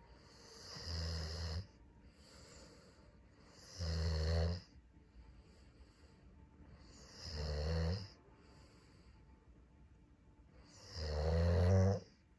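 Snoring: four long, deep snores, one about every three and a half seconds, the last one the loudest.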